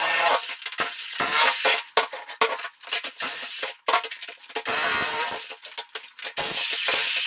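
Electric demolition hammer chiselling into hard, 40-year-old concrete in short stop-start bursts, with chips and chunks of concrete clinking as they break away.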